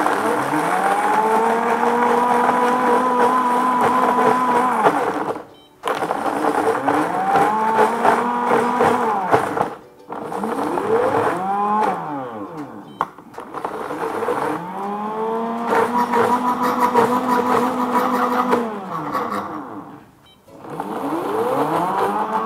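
Countertop blender crushing ice with ripe mango chunks into a thick smoothie. The motor pitch rises as it spins up and falls as it slows, in several runs separated by brief stops.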